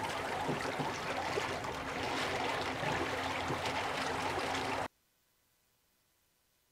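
Water splashing and gurgling against the hull of a slow-moving solar electric boat, with a faint steady hum underneath. It cuts off abruptly about five seconds in, leaving silence.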